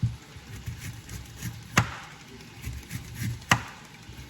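Sharp knocks of food preparation on a kitchen cutting board: three loud hits about a second and three-quarters apart, with lighter taps between.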